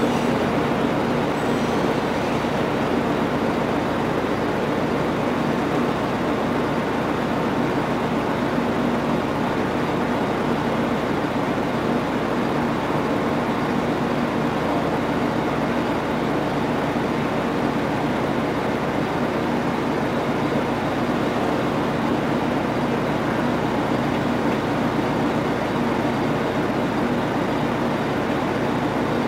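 Amtrak Superliner passenger train pulling slowly out of the station: a steady drone with a constant low hum.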